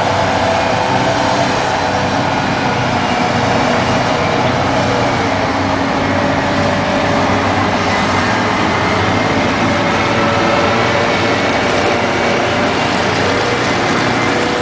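Heavy diesel engines of mining haul trucks running steadily, a loud even drone with a few higher whining tones above it.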